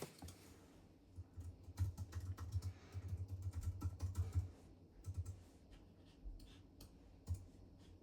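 Small metal parts of a pivot lathe set being handled: a quick run of light clicks and taps for a few seconds, then a single click near the end.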